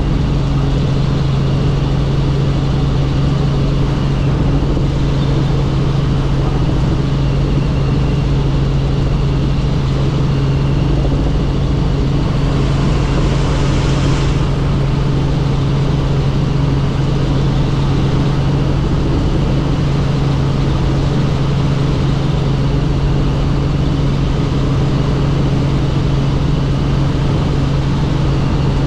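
Helicopter in flight, heard from inside the cabin: a loud, steady drone of engine and rotors with a strong low hum over a rumble. The hiss swells briefly about halfway through.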